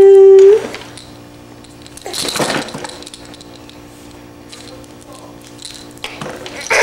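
Baby's vocal sounds: a loud, high held note at the very start, then two short breathy bursts, about two seconds in and near the end.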